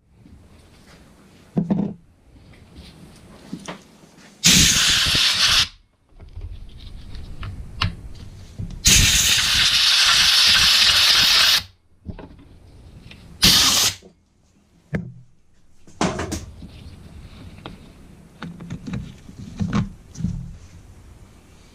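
Three loud bursts of hissing spray: one of about a second, a longer one of nearly three seconds, and a brief one. Small knocks and clicks of parts being handled come between them.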